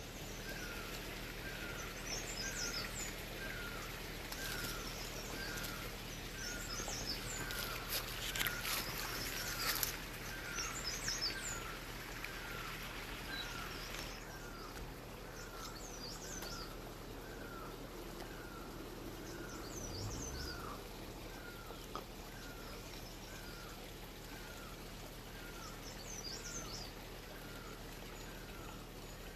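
Forest birds calling: one bird repeats a short falling note about once a second, and brief higher twittering calls come every few seconds. Leaves and branches rustle between about 4 and 10 seconds in as the bushes are handled.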